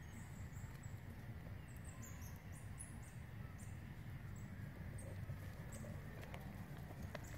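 Faint, high-pitched animal chirps or squeaks, many short falling notes in a loose run, over a steady low rumble.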